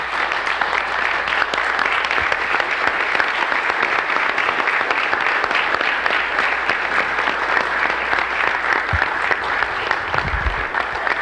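A large audience applauding, many hands clapping steadily, thinning a little near the end, with a couple of low thuds about nine and ten seconds in.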